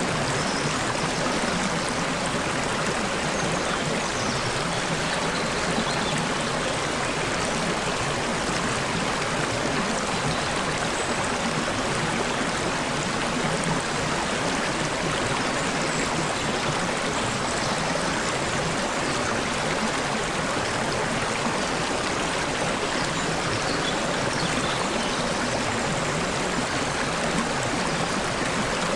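Flowing water babbling steadily, like a small stream over rocks, with an even, unchanging rush.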